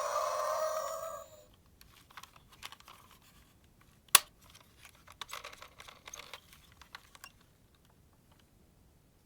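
Toy packaging and small toys being handled: scattered light clicks and crinkly rustles, with one sharp click about four seconds in. It follows a pitched electronic tone with several sliding notes that cuts off a little over a second in.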